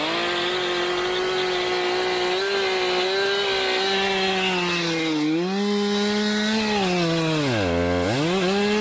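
A two-stroke chainsaw running at high throttle as it cuts into a tree. The engine speed sags slightly about five seconds in, then drops sharply and briefly about eight seconds in before climbing back to full speed.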